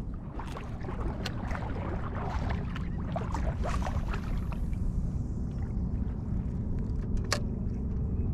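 Wind rumbling on the microphone over water sloshing around a wading angler, with scattered small clicks and splashes in the first half and one sharp click about seven seconds in.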